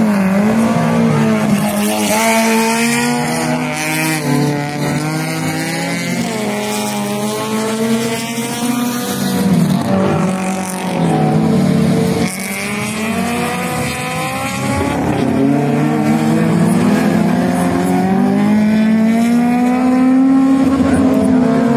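Racing car engines revving hard, their pitch climbing and dropping again and again as the cars accelerate along the course, with a hiss of tyre noise in places.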